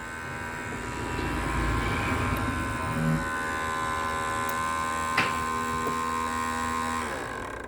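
ABS hydraulic unit's pump motor running with a steady electric hum, driven by the scan tool to push fluid through during a brake bleed, winding down and stopping near the end. A sharp click about five seconds in.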